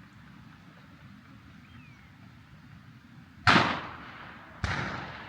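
Two shotgun shots about a second apart, each echoing as it dies away, the first the louder, after a few seconds of quiet outdoor background.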